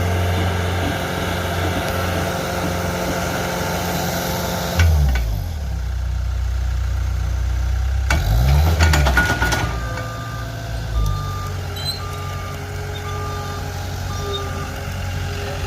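The engine of a hole-digging machine running under load. Its speed drops suddenly partway through, then dips and climbs again, and near the end a reverse warning beeper sounds about five times.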